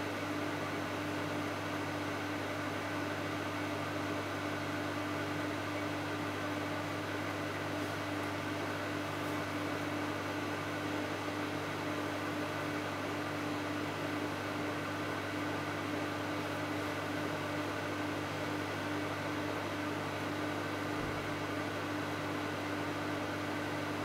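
Microwave oven running mid-cycle: a steady, unchanging hum at one pitch with a fan-like whir.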